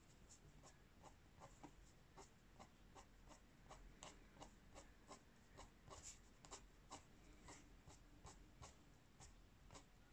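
Faint scratching of a colored pencil on paper, in short quick shading strokes at about three a second.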